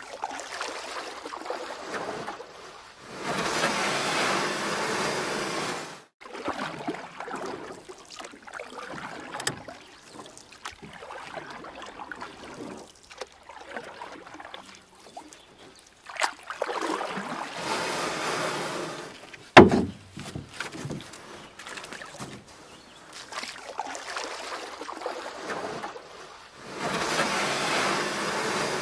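Kayak paddling: water swishing off the paddle in three long surges, with softer splashes and drips between them. A single sharp knock, the loudest sound, comes about two-thirds of the way through.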